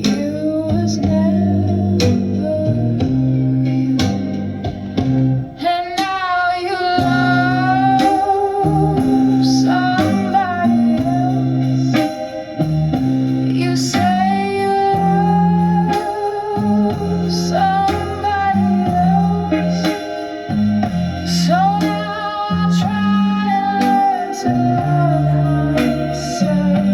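Recorded song played back through a Sony TA-88 amplifier: a held, wavering melody line over guitar, bass notes and a steady beat.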